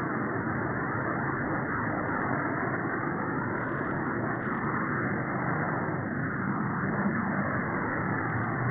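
Radio waves recorded in space around Earth, converted into sound: a steady, dense hiss threaded with many overlapping faint gliding chirps.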